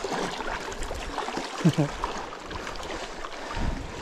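River water running steadily, with a short voice sound about halfway through and a few low knocks near the end.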